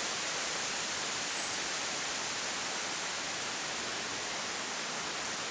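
Steady, even hiss with no changes in level, and one tiny high tick about a second and a half in.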